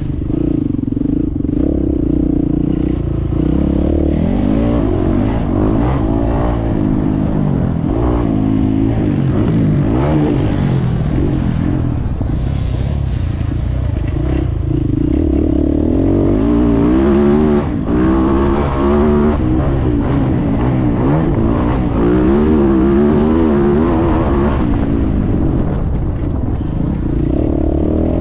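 A 450 cc motocross bike's engine, heard from on board, revving up and falling back again and again as the throttle is opened and closed around the track.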